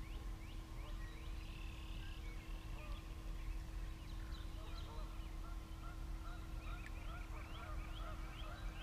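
Outdoor chorus of calling animals: many short, rising chirps repeating quickly, with lower warbling calls joining about five seconds in. A steady hum and a low rumble run underneath.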